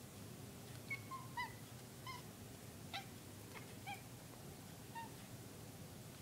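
Domestic cat making a series of short, squeaky chirps, about eight of them, some dipping slightly in pitch.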